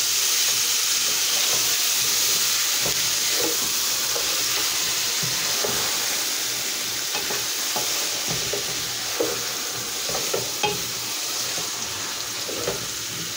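Chicken drumsticks sizzling in a pot while a spatula stirs them, scraping and knocking against the pot now and then. The steady sizzle eases off a little toward the end.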